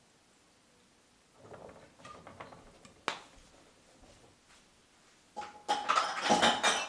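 A vinegar bottle being handled and opened with a few small clicks and one sharp click, then vinegar glugging out of it in a loud run of quick pulses near the end, poured into a pot of water for boiling jar lids.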